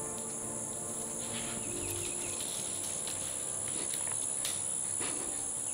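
Steady high-pitched chorus of insects, with a few faint ticks around four and a half to five seconds in.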